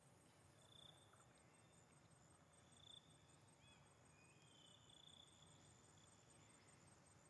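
Near silence, with a faint, high, fast-pulsing insect trill throughout and a few faint short chirps about one, three and five seconds in.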